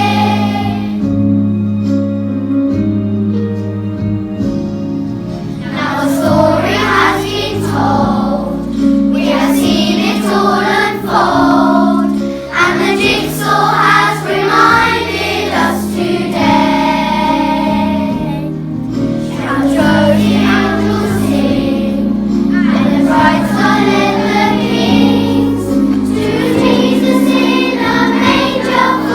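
A children's choir singing a song with instrumental accompaniment.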